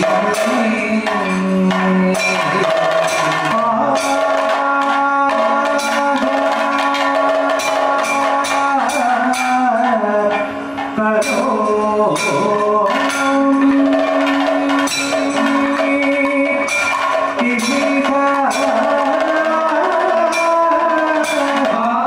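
Live Kathakali music: a sung vocal line over a steady drone, with frequent beats on metal gong and hand cymbals and strokes on maddalam and chenda drums.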